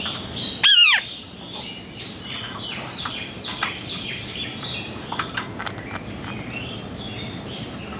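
Ringneck parrots calling: one loud, sharp screech about a second in, then a run of short, high, falling chirps.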